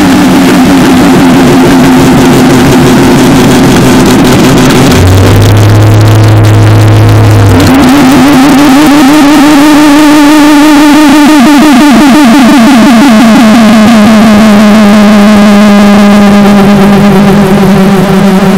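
Harsh noise music: a loud, unbroken wall of noise with droning tones underneath. A low hum comes in about five seconds in and drops out near eight seconds, after which a wobbling, warbling tone takes over.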